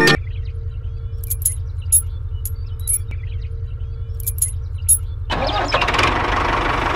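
A vehicle engine idling with a steady, fast low rumble and a few faint clicks. About five seconds in, a louder, fuller engine noise comes in.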